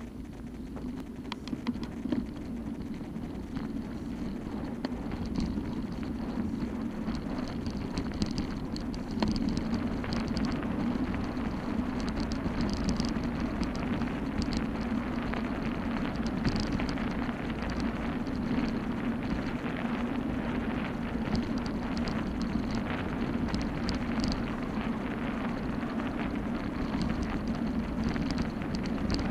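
Mountain bike rolling fast down a dirt track: a steady rumble of tyres on the dirt, with crackling grit and rattles from the bike throughout. The level rises over the first few seconds.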